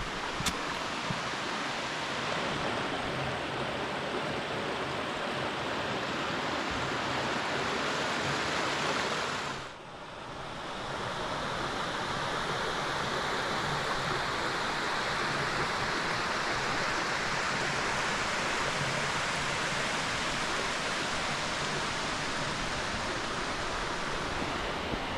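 Steady rushing of flowing stream water. The sound dips sharply for about a second near ten seconds in, then comes back.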